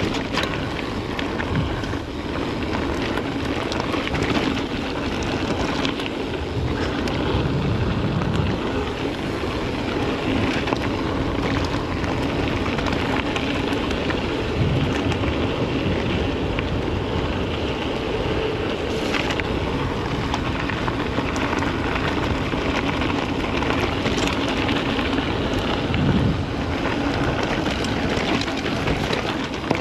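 Mountain bike running down a rough dirt descent: continuous tyre noise with rattling and clicking from the bike over the ground, and wind rushing over the microphone.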